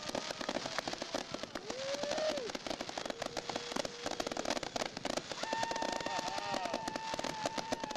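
Aerial fireworks crackling densely and continuously. A short whistle rises and falls about two seconds in, and a long steady whistle sounds over the crackle in the second half.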